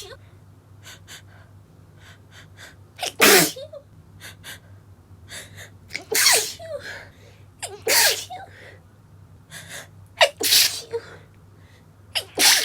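A woman's stifled sneezes, about five in a row, with short sharp catching in-breaths between them: a sneezing fit brought on by sawdust.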